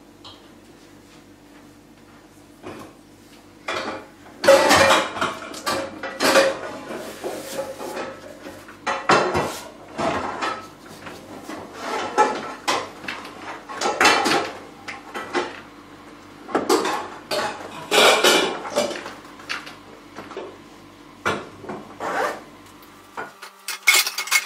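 Metal pots, pans and lids clattering and knocking against each other in irregular bursts as someone rummages through a low kitchen cupboard beside the hob.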